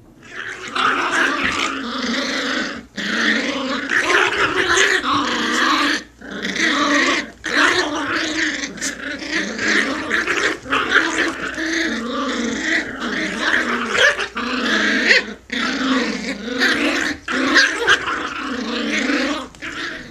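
Jack Russell terrier puppies growling in play while tugging at a toy, a near-continuous rough growl broken by a few short pauses.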